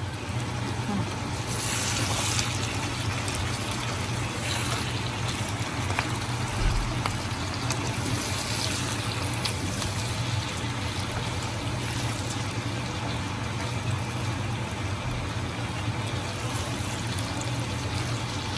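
Vegetables sizzling as they stir-fry in a pan, a steady hiss with a low hum underneath. The hiss brightens briefly about two seconds in, and again around four and eight seconds.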